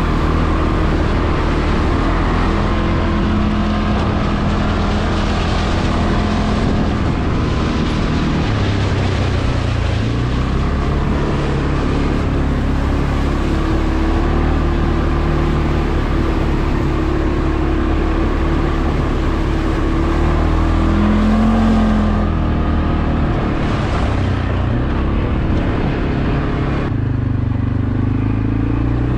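CFmoto CForce 520 ATV's single-cylinder engine running as the quad is ridden. Its pitch rises and falls every few seconds as the throttle opens and closes.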